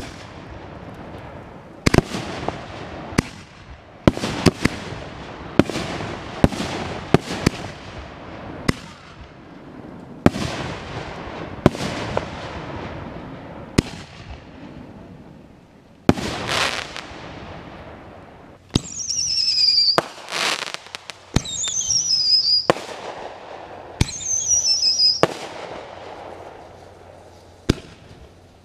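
Aerial firework shells bursting one after another, each a sharp bang followed by a long echoing tail. About two-thirds of the way through, three falling whistles sound among the bangs.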